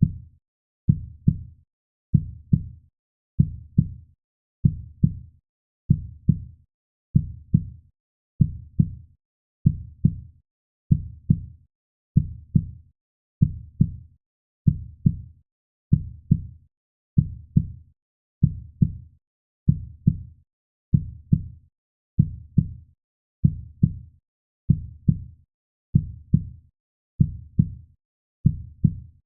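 Heartbeat sound: a slow, steady lub-dub, two close low thumps repeating about every 1.2 seconds.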